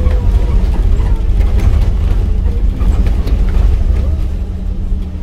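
Scania K310UD double-decker bus's engine running with a deep, steady rumble, and a whine that falls slowly in pitch and fades out about a second in.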